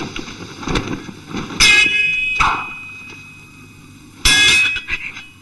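Two sharp metallic clangs of swords clashing, each ringing on for about half a second, the first about one and a half seconds in and the second near the end. A swish and some low thuds come between them.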